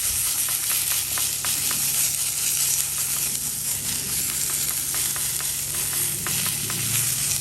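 Hamburger patties frying in hot fat, a steady sizzling hiss with many small pops and crackles throughout.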